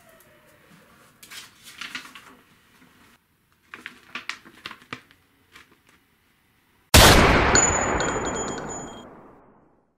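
Paper rustling faintly as a sheet is picked up and handled. About seven seconds in, a sudden loud bang with a metallic ringing that fades away over about two and a half seconds.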